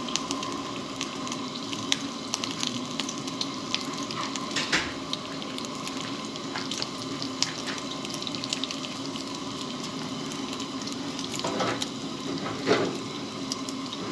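Bacon sizzling in a 12-inch skillet on a two-burner propane camp stove: a steady frying hiss dotted with small crackles and pops, with one louder pop near the end.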